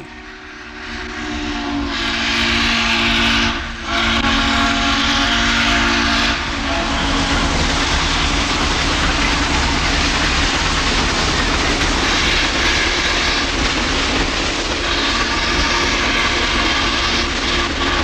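Steam locomotive whistle blowing a chord of several notes. It builds up over the first two seconds, breaks off briefly, sounds again and stops about six seconds in. After it comes the steady rumble of the steam excursion train rolling past, heard through the original Super 8 magnetic sound track.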